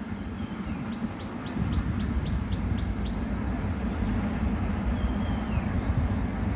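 Diesel locomotive engine rumbling steadily. A bird calls over it: a run of about eight quick, high, rising notes about a second in, and a slurred falling call about five seconds in.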